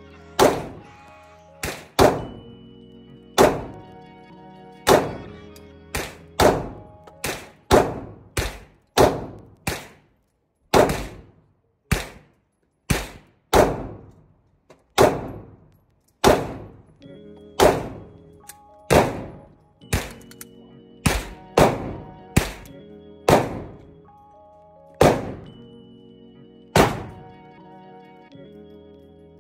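Taurus GX4 Carry 9mm pistol firing a long string of shots at an irregular pace of about one to two a second, each shot echoing briefly in an indoor range, with the last shot near the end.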